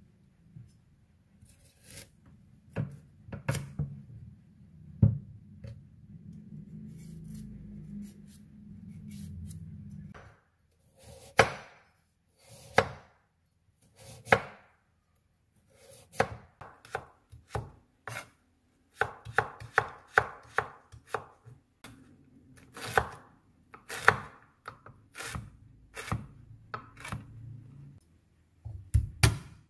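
A chef's knife cutting a carrot on a wooden cutting board: irregular sharp knocks of the blade hitting the board, some single and some in quick runs of several strokes.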